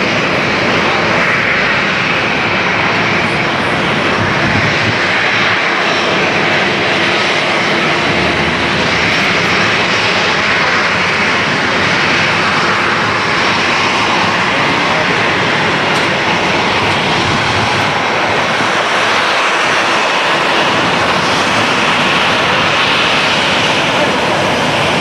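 Boeing 737-800 jet engines (CFM56 turbofans) running steadily at taxi power as the airliner taxis.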